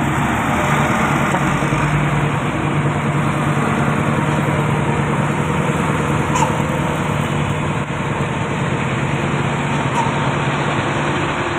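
Diesel engines of heavy trucks, a tanker and a container tractor-trailer, crawling slowly up a climb close by: a steady low engine drone.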